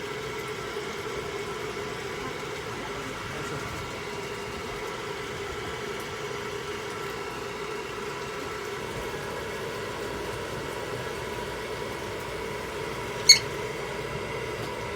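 Hand-held hair dryer running steadily, with one short sharp click near the end.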